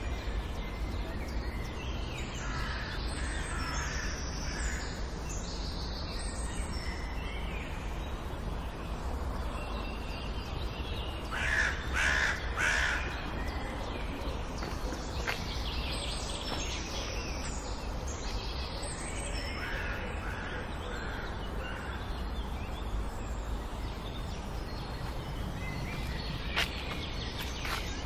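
Outdoor birdsong: small birds chirping here and there over a steady low rumble, with a crow cawing three or four times near the middle.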